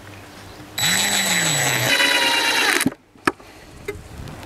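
Cordless drill driving a screw through a wooden spoon into a wooden tabletop: the motor runs for about two seconds, its pitch rising and then dropping as the screw goes in, and stops suddenly. A single sharp click follows about half a second later.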